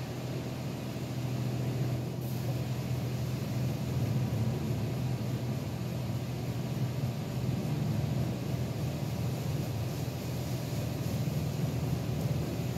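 High-pressure water jets of a touch-free car wash spraying the car, heard from inside the cabin: a steady hiss and drumming of spray over a low hum.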